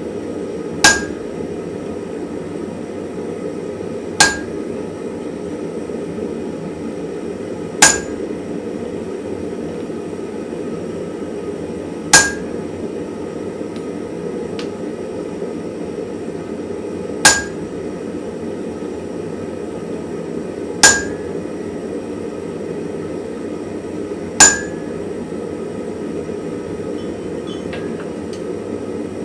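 Single hammer blows on hot steel at the anvil, seven of them spaced three to five seconds apart, each with a short metallic ring. Under them runs the steady low rush of the forge.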